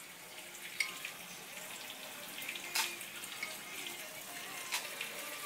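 A teaspoon spooning coffee into paper cups, giving three light clicks about two seconds apart, over a faint steady hiss.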